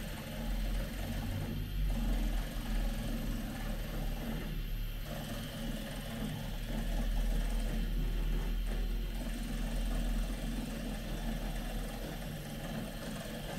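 Steady low machine hum with an even hiss from a CNC milling machine at rest between operations, the hiss thinning briefly a few times.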